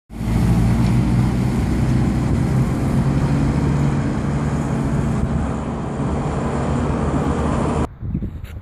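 Water tanker truck's engine running as the truck drives off along a dirt track, easing slightly as it pulls away. The sound cuts off suddenly near the end.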